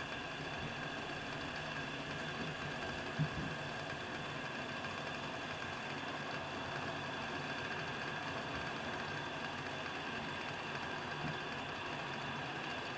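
Vargo Triad alcohol stove burning under a pot of water being brought to the boil: a steady rushing noise of the flame and heating water, with one short knock about three seconds in.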